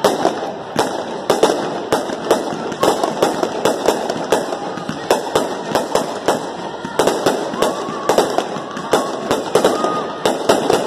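Fireworks display: aerial shells going off in quick succession, two or three sharp bangs a second over a continuous crackle.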